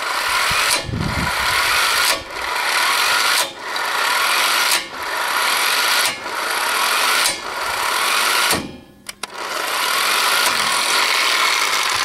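Chicago Electric electric impact wrench hammering on a truck wheel's lug nuts to loosen them. The rattle dips briefly about every second and a half, cuts out for a moment about three-quarters of the way through, then starts again.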